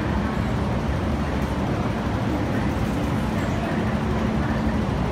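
MTR Kwun Tong Line metro train on an underground station platform: a steady low rumble with a faint hum.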